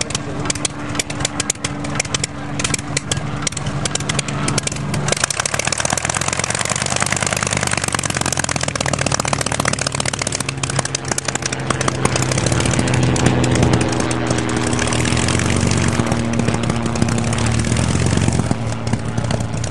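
Propeller engine of a vintage Avia B.H.5 light monoplane running as the aircraft taxis on grass, a steady rapid beat. It grows louder about two-thirds of the way through, then eases back near the end.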